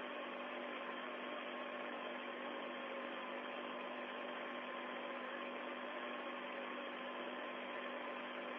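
Steady static hiss from the Soyuz capsule's open air-to-ground radio channel, cut off above the voice band, with a few faint steady hum tones.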